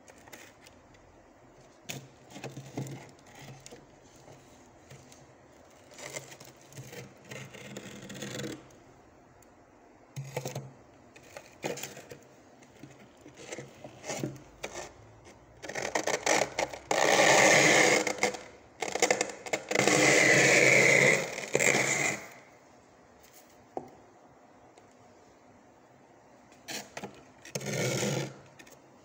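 Small plastic ice cream container scraping thick frost off the inside of a freezer: short, scattered scrapes at first, then two long, loud runs of scraping around the middle and a shorter one near the end.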